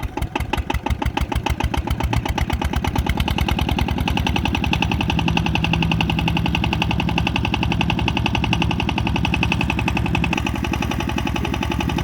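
Diesel engine of a tubewell water-pump set starting up: its firing beats begin, quicken over the first few seconds and settle into a steady run.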